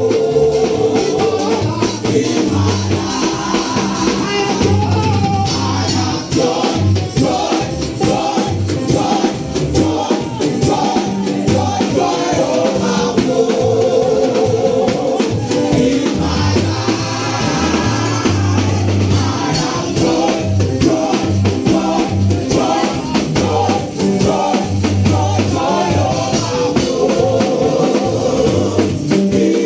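Live gospel singing: a woman's lead vocal amplified through a microphone, with backing singers, over a band accompaniment with a steady beat and a repeating bass line.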